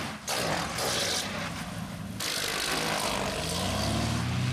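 Light twin-engine plane touching down with its gear up: a harsh scraping rush as its propellers strike the runway pavement, which stops abruptly about two seconds in. The engines' drone then swells toward the end as power is added.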